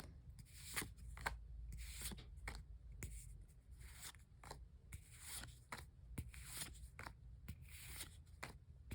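Pokémon trading cards being flipped and slid off one another in the hand, one card at a time: a run of quick, light flicks and paper-on-paper slides, roughly two a second.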